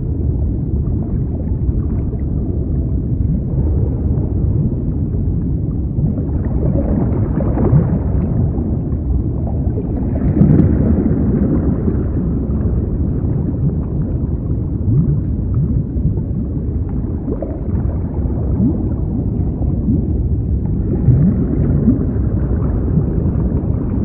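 Muffled underwater ambience: a steady low rumbling wash with brief rising gurgles of bubbles now and then.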